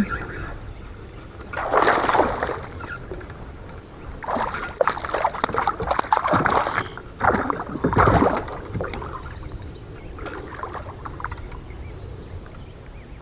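Water splashing and sloshing in several bursts as a freshly hooked bass thrashes at the surface beside a kayak while it is fought.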